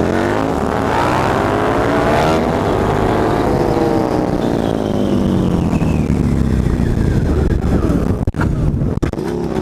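Motorcycle engine running under way, its pitch climbing over about the first three seconds and then falling slowly as the bike slows, over a steady rush of wind noise.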